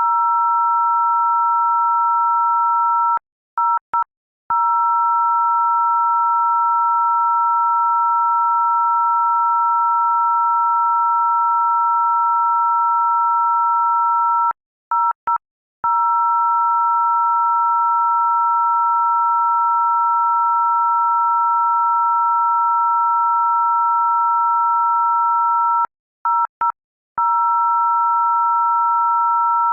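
Loud, steady electronic tone made of two pure pitches sounding together, cut off three times, about every eleven seconds, by brief stuttering gaps before it resumes.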